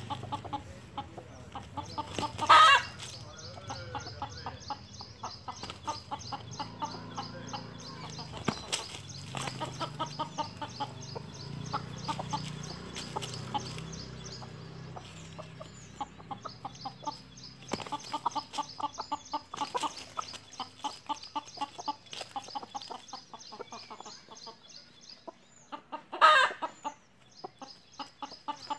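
Desi hens clucking, with two short loud calls: one about two and a half seconds in, one near the end.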